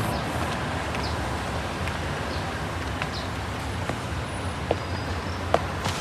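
Steady low vehicle rumble, with short sharp clicks about once a second in the second half.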